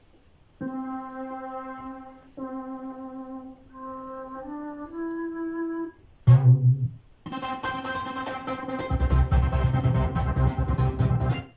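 Synthesizer keyboards played live: a few held notes stepping up in pitch, then a short downward pitch sweep about six seconds in. A full sustained chord with a fast repeating pulse follows, deep bass joins near nine seconds, and it cuts off sharply at the end.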